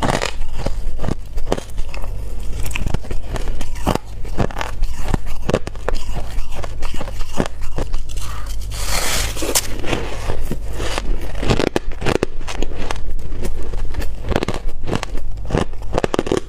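Person biting and chewing soft, snow-like white ice: crisp crunches and crackles picked up close by a clip-on microphone. A louder, longer crunch comes about nine seconds in.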